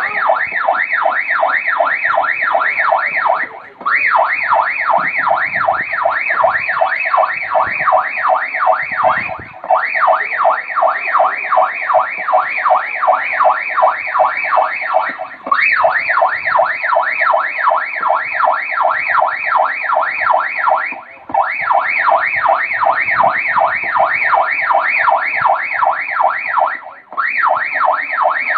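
Electronic siren on a fast yelp: a rapid rising-and-falling wail, about four sweeps a second, cutting out briefly every five to six seconds and starting again.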